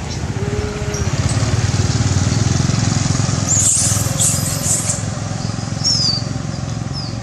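A small engine running steadily, with a burst of short high squeals from young macaques about halfway through and a couple more near the end.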